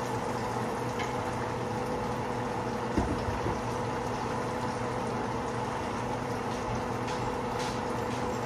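A pot on an electric stovetop bubbling and hissing steadily as it steams, over a low steady hum. There is a single short knock about three seconds in.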